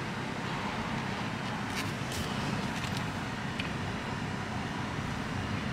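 Steady car engine and cabin noise heard from inside the car, with the engine at idle or the car creeping slowly forward.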